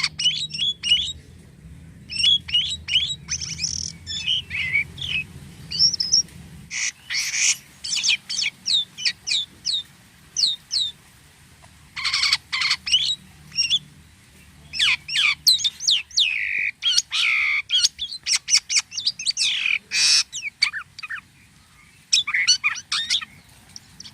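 Jalak kapas starling singing a busy, varied string of short whistles, chirps and quick sweeping notes, in clusters separated by short pauses. This is the 'gacor' song, with odd, unusual notes.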